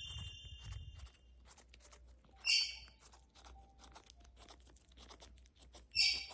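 Quaker parrot picking and tearing at nesting material with its beak: a steady run of small clicks and crackles, with two short, sharp, louder bursts about two and a half and six seconds in.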